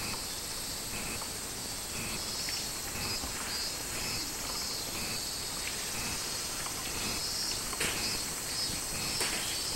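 Cicadas calling from the trees: a steady high buzz with a pulsing call that repeats about once a second. A couple of faint knocks come near the end.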